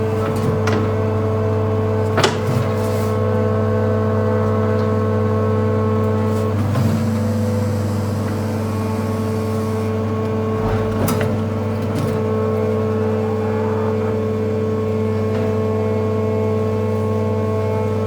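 Small electric motor of a toy remote-control excavator running with a steady, even hum, with a few sharp clicks and knocks.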